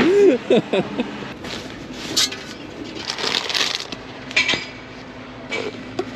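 A short exclaimed voice in the first second, then scattered clinks and knocks with a patch of scuffling noise.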